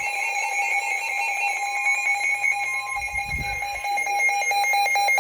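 Weather radio alert alarm sounding as a steady electronic tone that turns into rapid beeping, about five beeps a second, about four seconds in. A dull thump comes shortly before the beeping starts.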